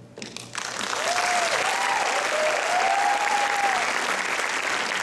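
Audience applause breaking out about half a second in and building quickly to a steady clapping, with a few calls gliding up and down over it.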